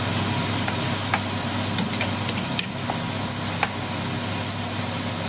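Pork, onion, garlic and tomato sizzling in a frying pan while the onion caramelizes, with scattered small pops and clicks. A steady low hum runs underneath.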